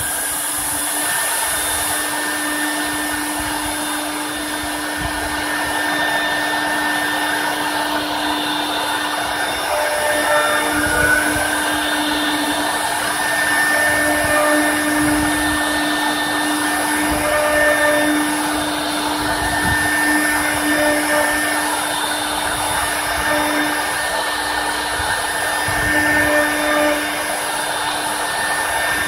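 Four spindles of a multi-spindle CNC router (FORSUN FS1631-4H) running with a steady whine while the machine cuts into a wooden board. Shorter higher tones come and go over the whine as the heads work.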